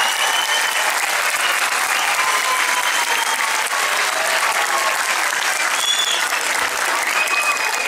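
Audience applauding steadily, with a few faint voices calling out over the clapping.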